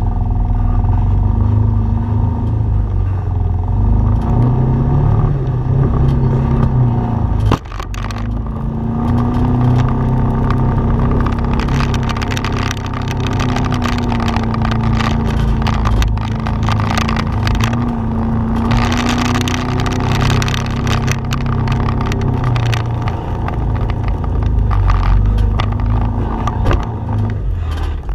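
Off-road vehicle's engine running steadily at low speed as it crawls over a rocky trail, its note dipping briefly about seven and a half seconds in. Scattered clicks and knocks from the tyres and chassis on the rock run along with it.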